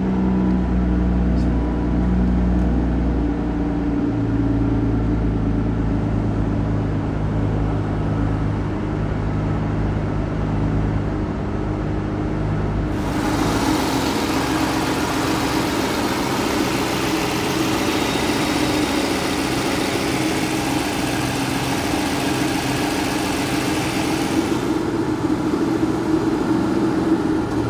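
An Aston Martin DB9's 5.9-litre V12 running at idle just after a cold start, warming up. The note is deep and strong for the first few seconds, then settles. About halfway through it turns brighter and hissier.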